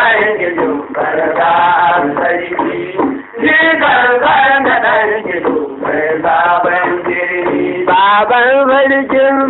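A male voice singing a traditional Hausa song with musical accompaniment, the melody bending and ornamented, with a short break about three seconds in and a wavering, shaken pitch near the end.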